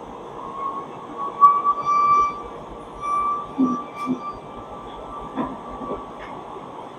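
Machinery of an SMT circuit-board assembly line running: a steady mechanical hum with a wavering high whine that comes and goes, and a few light clicks.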